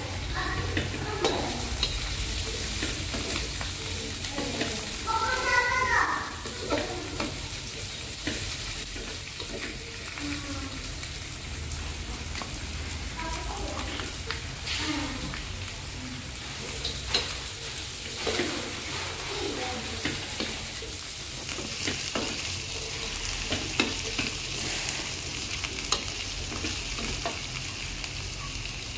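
Long beans sizzling in a steel wok while a metal spatula stirs them, scraping and clicking against the pan.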